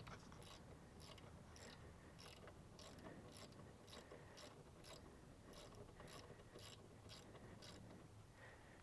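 Socket ratchet clicking faintly and evenly, about two clicks a second, as a 10mm bolt is backed out.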